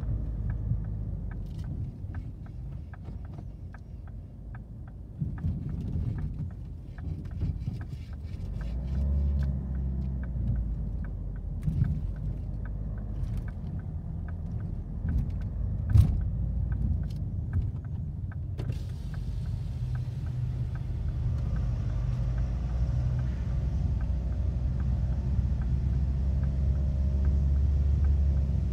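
Low rumble inside a car's cabin as it creeps up a ferry's loading ramp onto the vehicle deck, with faint regular ticking and one sharp knock about two-thirds of the way through. In the last third the rumble grows louder and steadier, with more hiss, once inside the enclosed car deck.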